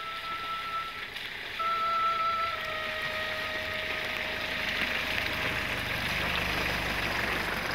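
Four-wheel-drive van driving through a puddle on a muddy forest track: its engine hum grows as it comes close, and water hisses and splashes under the wheels as it passes. A steady high tone sounds over it during the first couple of seconds.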